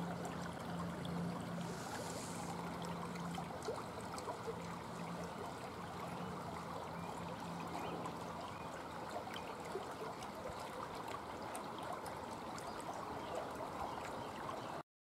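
Steady trickling of running water from a small water feature, with a low hum that pulses on and off through the first half. The sound cuts off abruptly near the end.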